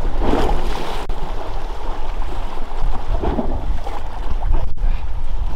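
Steady wind and water noise on a small boat at sea, with two short louder noises about a third of a second and three seconds in.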